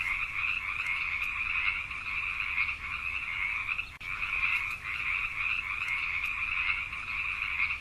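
Gray tree frog calling: a steady, fast-pulsed trill in two high bands, with a short break about four seconds in.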